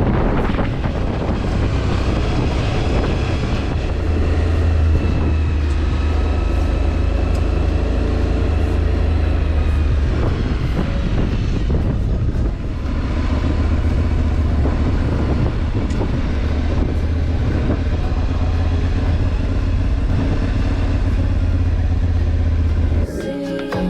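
Motorcycle engine running under way on a dirt road, with a strong low drone and the pitch rising and falling with the throttle, plus wind and road noise. Music cuts in near the end.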